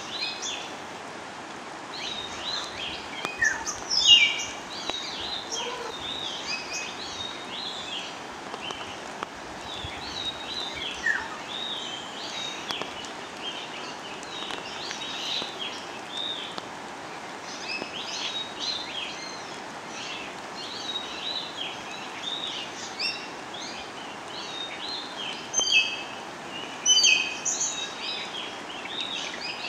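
Many birds chirping and calling, a busy run of short high chirps from several birds, over a steady background hiss; the chirping is loudest about four seconds in and again near the end.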